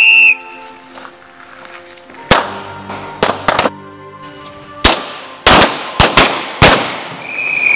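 A whistle blast, then a firing line of pistols shooting: about a dozen sharp shots, scattered and in quick pairs. Near the end comes a second whistle blast, falling slightly in pitch, under background music.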